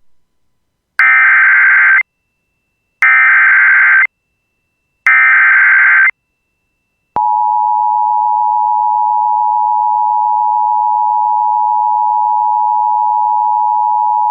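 Three one-second bursts of the EAS SAME digital header, a harsh electronic warble encoding a severe thunderstorm warning. About seven seconds in, the steady single-pitched NOAA Weather Radio 1050 Hz warning alarm tone begins and holds.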